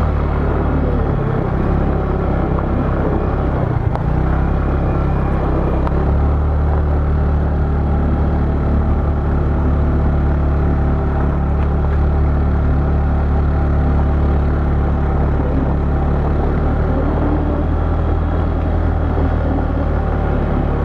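Motor vehicle engine running steadily while driving along a road, with road and wind noise; the low engine note wavers in the first few seconds, then holds steady.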